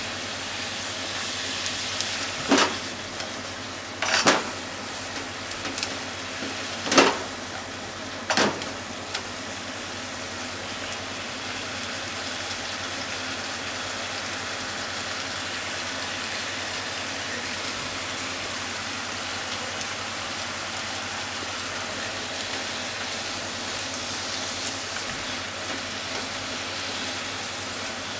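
Sliced pork and onion in ginger-pork sauce sizzling steadily in a frying pan as they are stirred with chopsticks. Four sharp knocks of the chopsticks against the pan come in the first nine seconds or so.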